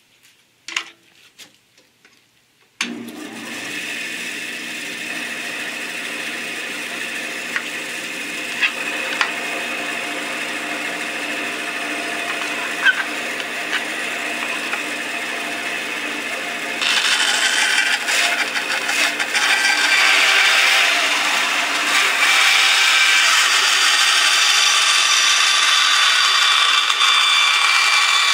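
Band saw switched on about three seconds in, running unloaded with a steady sound. From a little past halfway it cuts through the back of a grey plastic electrical box, getting louder and higher-pitched as the blade bites.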